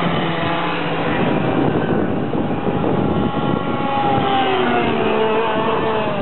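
Several racing kart engines running on the track at once, their pitch rising and falling as the karts accelerate and lift off through the corners. In the second half one engine's tone falls steadily.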